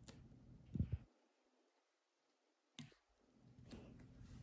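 A few faint clicks and a soft knock from craft materials being handled on a tabletop, with a stretch of dead silence in the middle where the sound track cuts out.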